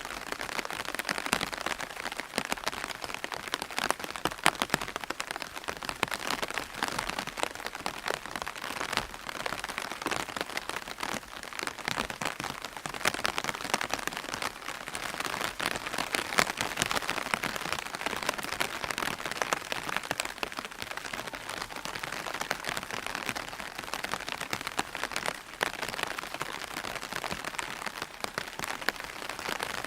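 Steady rain falling on an umbrella: a dense, even patter of many small drops tapping on the taut canopy.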